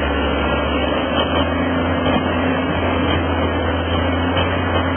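Fast whitewater river rapids rushing loudly and steadily, with a steady low engine hum underneath.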